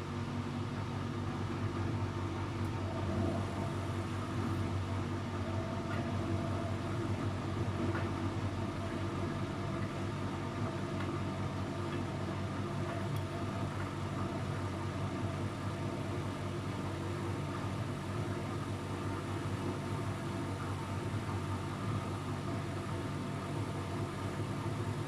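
Luxor WM 1042 washing machine running steadily in its spin cycle, a low even machine hum.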